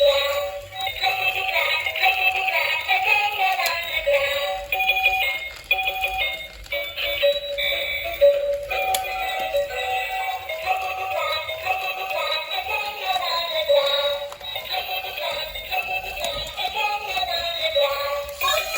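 Tinny electronic music with a synthesised, voice-like melody stepping up and down.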